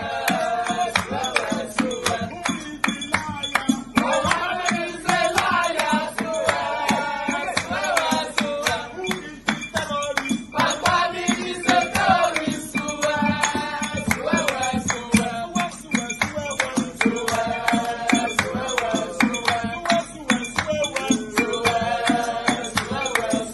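Music with singing over a steady, fast percussion beat.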